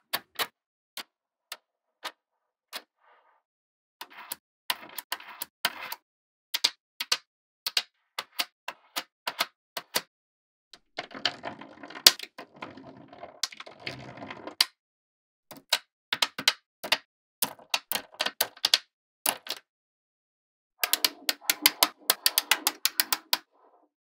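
Small neodymium magnetic balls clicking and snapping together as rows of balls are pushed into flat sheets: sharp, irregular clicks, with two stretches of dense rattling clatter, about halfway through and again near the end.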